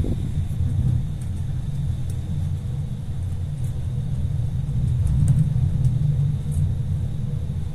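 Steady low rumble inside a moving Intercity passenger coach, its wheels running on the rails at speed, with a few faint ticks.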